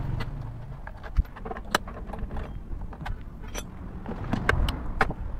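Irregular metal clicks and clinks of a hand wrench and loosened bolts as the bolts holding a scooter's CVT cover are undone, over a low steady rumble.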